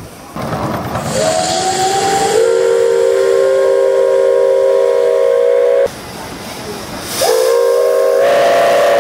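Steam traction engine's whistle blowing a chord of several tones. A rush of steam hiss comes first and the whistle sounds about a second in, holding for about four and a half seconds before cutting off abruptly. It sounds again about seven seconds in and carries on.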